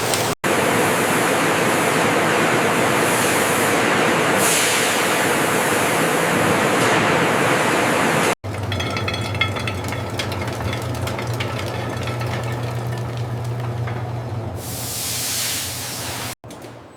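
Factory machinery: a loud, steady spray-like hiss, then after a sudden cut a steady machine hum with light clicking and a short swell of hiss near the end.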